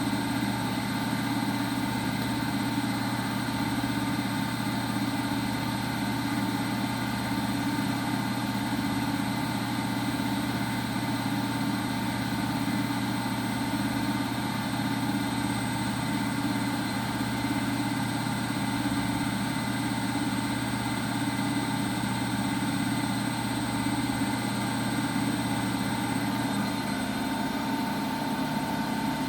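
Washing machine running with a steady motor hum and whine that holds an even pitch and level throughout.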